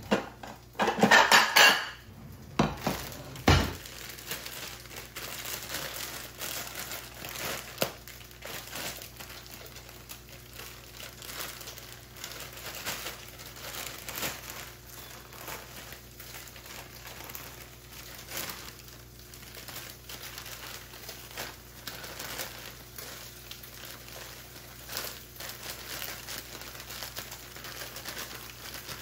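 Kitchen dishes clattering, loudest about a second in, with a sharp knock a couple of seconds later; then a long run of light crinkling and small clicks from a plastic salad-kit bag being handled and lettuce being tipped into a bowl.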